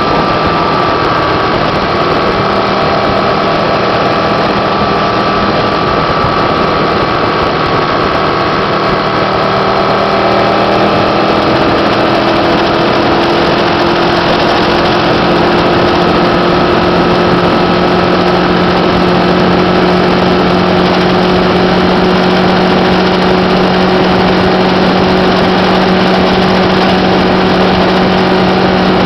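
Motorcycle engine running at highway speed under heavy wind rush. The engine note rises slightly around the middle and then holds steady.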